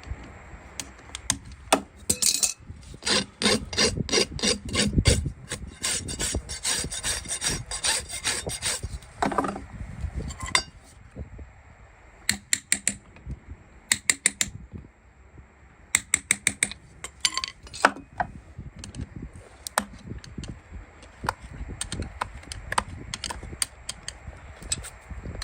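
Farrier tools scraping and filing a horse's hoof: a fast run of short scraping strokes for several seconds, then scattered shorter groups of strokes and clicks.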